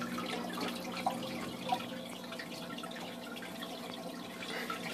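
Aqueon QuietFlow 75 hang-on-back aquarium filter running, its returning water trickling and splashing steadily into the tank over a low steady hum, with a couple of faint clicks in the first two seconds.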